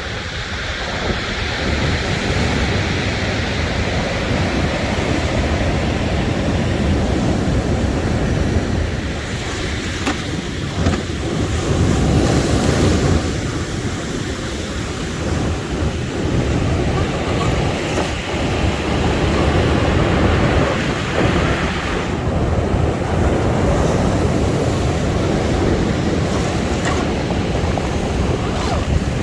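Strong wind buffeting the microphone over the steady rush of surf on a stormy beach.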